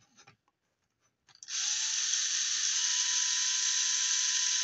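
Cordless drill-driver starting about a second and a half in, its whine rising as it spins up and then running steadily while it backs a screw out of a 3D-printed plastic part.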